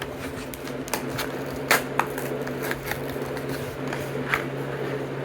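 A Hot Wheels blister pack being torn open by hand: irregular crackles and snaps of plastic and cardboard, the sharpest a little under two seconds in.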